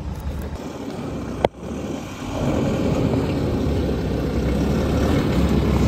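Force Gurkha off-roader's diesel engine running, growing louder from about two seconds in as it climbs out of a deep off-road dip. A single sharp click about one and a half seconds in.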